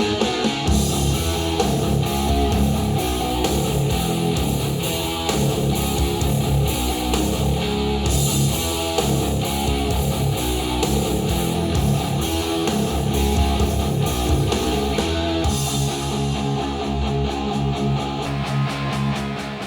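Guitar-led music played through a pair of Edifier bookshelf speakers and picked up by room microphones, fading out near the end.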